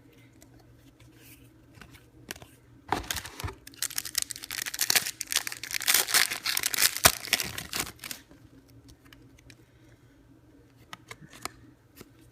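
Foil wrapper of a hockey trading-card pack being torn open and crinkled, a dense crackling for about five seconds in the middle, with a few small clicks of cards being handled before and after.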